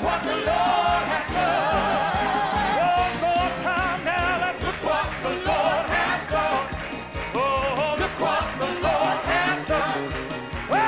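Upbeat gospel song performed by singers and a band: voices singing with vibrato over drums keeping a steady beat.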